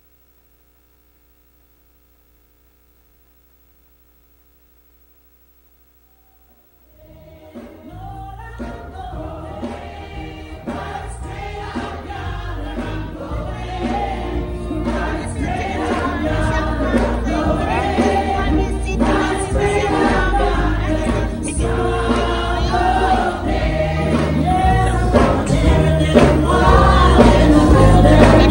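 Near silence with a faint mains hum for about seven seconds, then a gospel choir starts singing, led by a woman soloist, and grows steadily louder.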